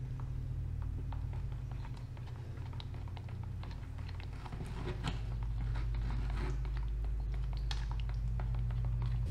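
Wooden stir stick clicking and scraping against the sides of a plastic mixing cup as epoxy resin is stirred with tint, many small irregular ticks, over a steady low hum.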